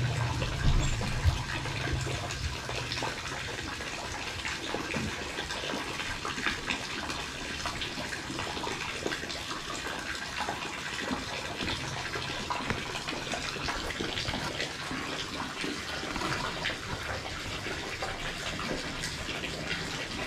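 Water running and splashing steadily, like a tap pouring into a basin or tub, with a few dull knocks in the first second or two.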